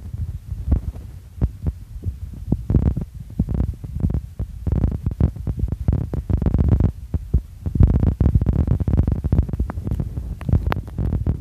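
Wind buffeting the phone's microphone: a low, irregular rumble coming in gusts, strongest about two thirds of the way through.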